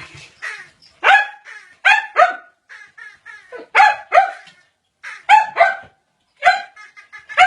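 Dog barking repeatedly in short, high-pitched barks, mostly in quick pairs, at a toy.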